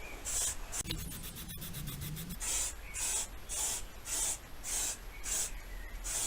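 Aerosol spray paint can hissing in short bursts, about one every half second, as paint is sprayed on; a quick rattling about a second in.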